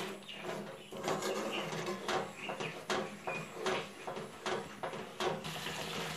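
Wooden spatula scraping and tapping against a kadai as it stirs a thick curry gravy: irregular strokes, about one or two a second, over a faint steady low hum.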